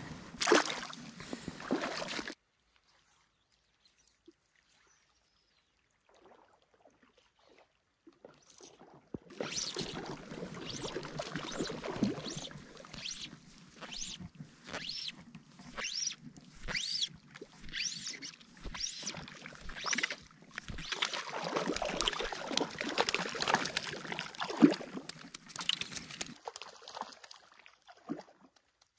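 Shallow lake water splashing and sloshing in an irregular run of splashes. The sound drops to near silence about two seconds in, returns after about six seconds, and fades away near the end.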